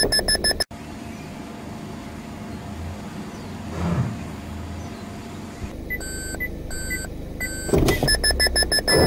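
Suzuki Alto's in-car warning alarm beeping rapidly, cut off under a second in. Then low car noise with a brief swell about four seconds in, slower beeps about twice a second from about six seconds in, and the rapid alarm beeping again near the end: the warning of the pedal-misapplication acceleration-suppression system during the test.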